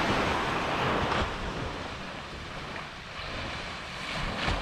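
Surf washing onto a sandy beach, louder in the first second and then easing off, with wind rumbling on the microphone.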